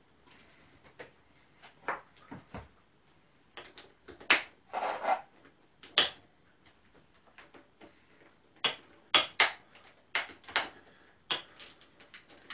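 Irregular sharp metallic clicks and knocks of parts and tools being handled while controls are fitted onto motorcycle handlebars, with a short denser clatter about five seconds in.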